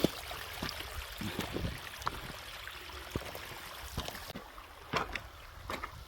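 A small rain-fed mountain stream running and trickling close by. The rush of water thins out about four seconds in, and a few footsteps scuff on wet ground near the end.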